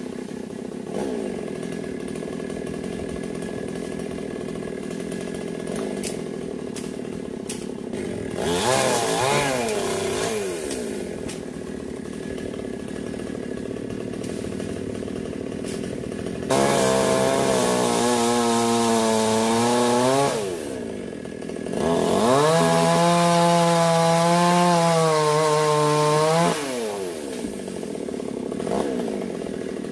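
Two-stroke chainsaw idling, revved briefly a little before the middle. It then runs at full throttle twice in the second half, its pitch wavering under load as it cuts into sonokeling (Indonesian rosewood) limbs, and drops back to idle after each cut.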